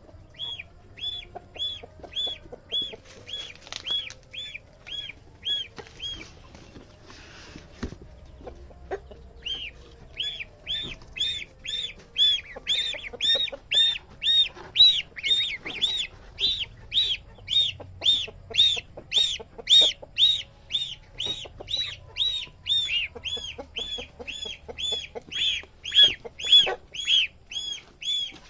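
Goslings peeping: a steady series of high, rising-and-falling peeps, about two to three a second, pausing for a few seconds early on and then running on without a break.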